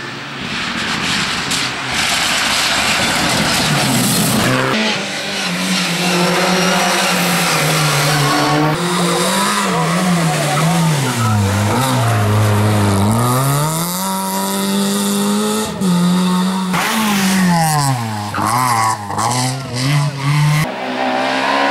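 Rally car engine at high revs, its pitch climbing and falling as the driver changes gear, with two deep drops in pitch as it slows and downshifts, over heavy tyre and road noise.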